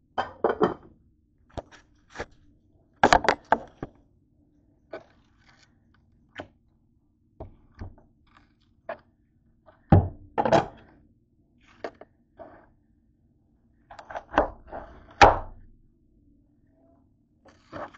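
Heads of cabbage being handled on a cutting board: irregular thunks as they are set down and moved, with crisp crackles from the leaves, in several short bursts.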